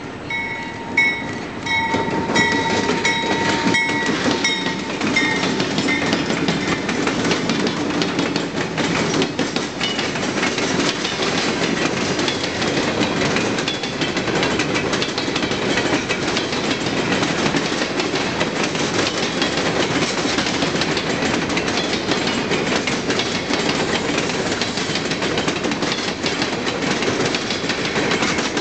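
Empty coal train rolling past: the diesel locomotives go by with a high ringing tone, broken into short pulses, over them for the first five seconds. After that comes a long, steady rumble and clatter of empty steel hopper cars, with wheel clicks coming thick and fast.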